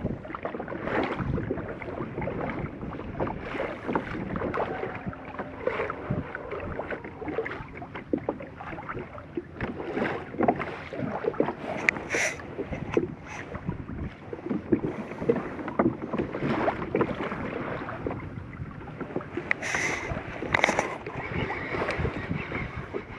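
Water lapping and splashing against a kayak's hull, with scattered small clicks and knocks throughout. The sharpest knocks come about halfway through and again near the end.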